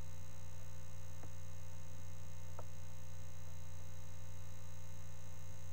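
Steady low electrical mains hum in the recording, with two faint short clicks about a second and two and a half seconds in.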